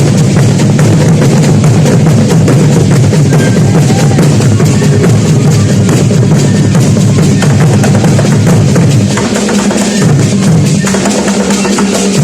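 Big drums played together in a dense, continuous rhythm, loud and weighted to a deep low end. From about nine seconds in, the deepest part drops back at times.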